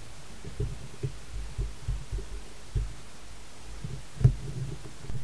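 Irregular low thumps over a steady low hum, the strongest about four seconds in.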